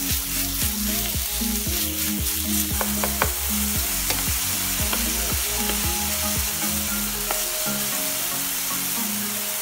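Minced pork sizzling in a hot nonstick frying pan as it is stir-fried until cooked, with a wooden spatula pushing and scraping it around and a few sharp clicks about three seconds in. Background music with a changing bassline plays underneath.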